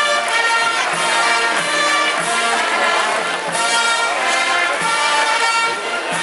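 Brass band playing a Holy Week processional march: sustained brass chords over a steady beat.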